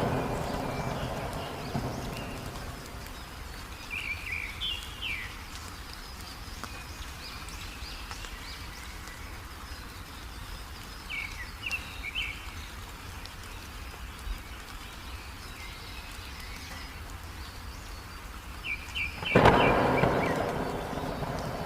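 A small songbird gives short bursts of chirps a few times over a steady hiss of heavy rain. A thunderclap breaks near the end and rumbles away slowly, and another rumble of thunder is fading out at the start.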